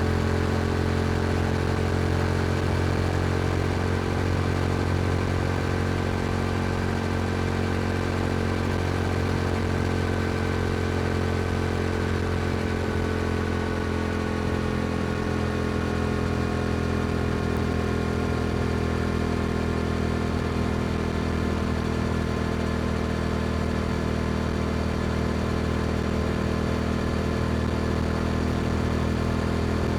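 Yamaha R7's parallel-twin engine through an Akrapovic exhaust, cruising at steady revs, its pitch easing slowly down over the first two thirds and then holding.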